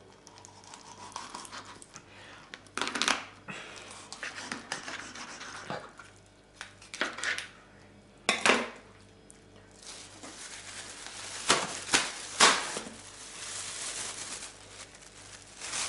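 Kitchen knife cutting raw chicken on a plastic cutting board, with scattered knocks of the blade and pieces on the board. In the later part a clear plastic bag crinkles and rustles as it is opened.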